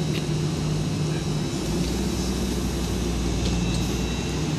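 GWR Class 800 bi-mode train's underfloor diesel engines running at the platform, a steady hum with a high whine over it; about a second and a half in a deeper rumble comes in as the engines take up more power.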